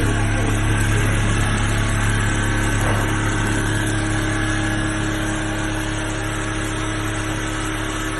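Large automatic rotating-head template pattern sewing machine running with a steady mechanical hum.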